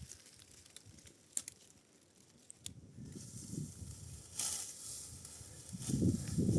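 Dry wheat stalks rustling and swishing as they are handled, with a few sharp clicks in the first half and louder bursts of rustling near the end.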